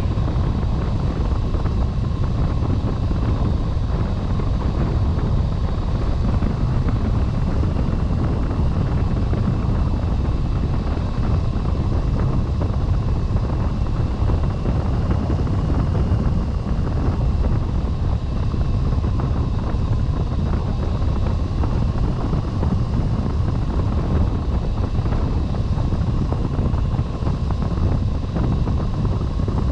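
Steady wind rushing over the microphone of a hang glider's wing-mounted camera in flight, with a faint steady high tone running underneath.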